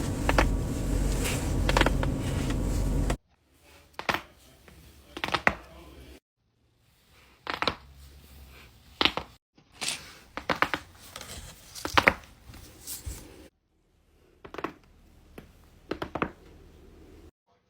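Neck joints cracking and popping during chiropractic adjustments: a string of short, sharp cracks, often two or three in quick succession, in separate clips cut abruptly one after another. Under the first clip there is a loud steady hum.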